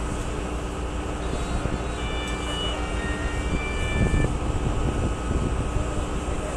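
Distant emergency vehicles running with blue lights: faint siren tones change pitch back and forth from about a second in until about four seconds. Under them is a steady low rumble of wind and far-off engines.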